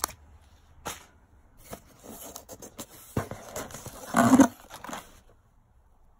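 Candy packets and a small cardboard candy box rustling and crinkling as they are handled inside a cardboard shipping box. A few sharp clicks come near the start and about a second in. About four seconds in there is a louder rustle and scrape as a box is pulled out, and the handling stops about five seconds in.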